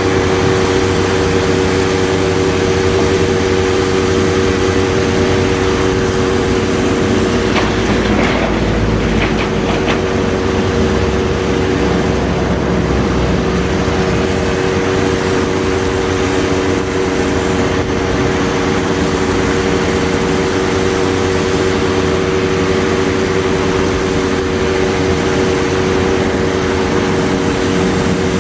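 Doosan excavator running steadily, a constant droning hum from the engine and hydraulics, with a brief clatter about eight seconds in.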